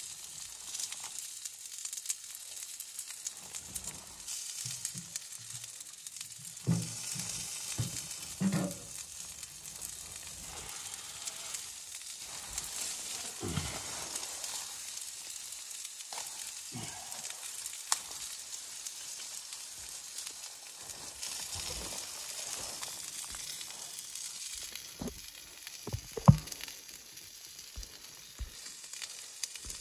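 Small steel wood stove burning with its door open: a steady hiss with fine crackling, broken by several knocks of firewood being handled. The sharpest knock comes near the end.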